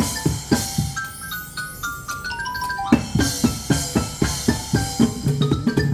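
Live percussion music: a steady drum beat with a mallet instrument playing bright pitched notes. About a second in the drums drop back under a run of stepping mallet notes, and the full beat returns about three seconds in.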